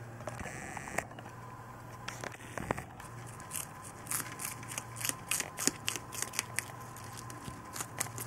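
A domestic rabbit crunching a chunky dandelion stem: a quick, irregular run of sharp crunches, several a second, starting about three seconds in.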